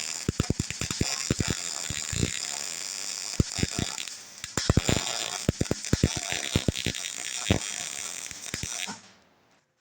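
Electric arc welding on steel: a steady crackling sizzle with irregular sharp pops. It cuts off suddenly about nine seconds in, when the welder tripped its circuit breaker and went dead.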